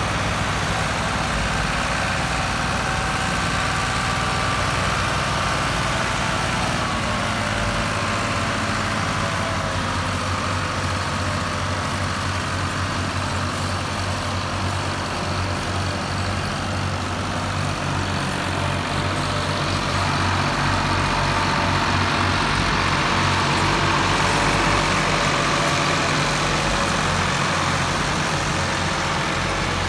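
Ford tractors' diesel engines running steadily under heavy load as one tractor tows the other, which is hauling a loaded fodder trolley, by a chain across soft ground. The engine sound grows a little louder about two-thirds of the way through.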